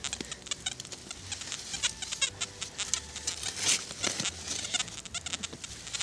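Shovel digging into sandy soil and tossing it onto a spoil heap: the blade crunches and scrapes in the earth again and again, and loose soil patters down.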